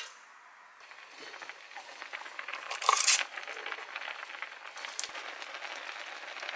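Creamy mala tteokbokki sauce simmering in a frying pan, a steady crackling bubble-hiss, with a brief louder hiss about three seconds in.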